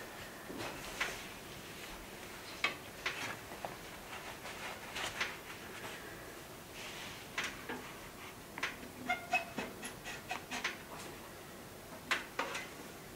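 Wood fire burning in a wood stove behind its closed glass door, crackling and popping irregularly, with a cluster of short squeaky tones a little past the middle.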